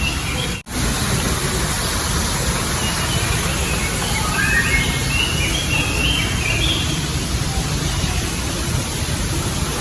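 Steady rushing of a small waterfall in an indoor tropical garden, with a few short, high bird calls about four to seven seconds in. The sound cuts out briefly under a second in.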